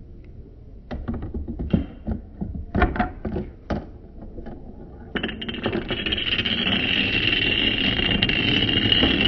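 A few separate clicks and knocks as a gumball is let go and rolls down a small wooden ramp. Then, from about five seconds in, a long chain of dominoes topples in a fast, continuous clatter.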